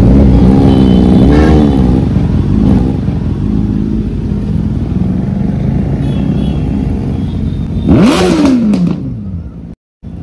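Motorcycle engines running as a group of bikes rides slowly in traffic, with the throttle blipped so the pitch wavers up and down about a second in. About 8 s in one engine revs sharply and its pitch falls away over about a second, and the sound cuts out briefly near the end.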